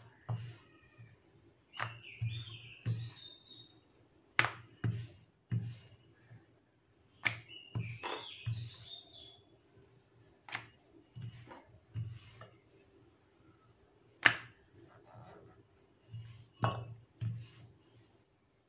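Steel rolling pin rolling out dough on a stone board: irregular clacks and knocks as the pin strikes and rolls on the stone, with low thumps. A bird chirps briefly in the background twice, about two seconds in and again about eight seconds in.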